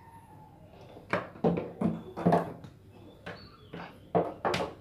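Hands handling a hard-disk adapter's power brick and cables on a wooden table. A run of sharp plastic knocks and clicks starts about a second in, with the loudest near the middle and near the end.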